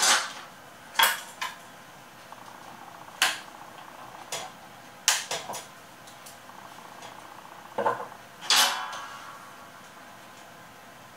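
Light clinks and taps of small metal hand tools and a soldering iron being handled and set down on a wooden desk, about ten irregular knocks with short ringing.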